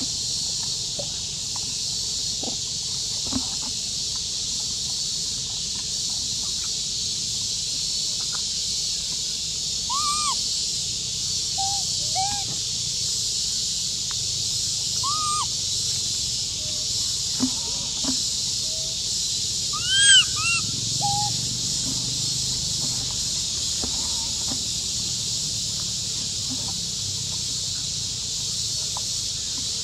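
Outdoor natural ambience: a steady high-pitched hiss runs throughout, with a few short, arching animal calls scattered through it, the loudest a pair about twenty seconds in.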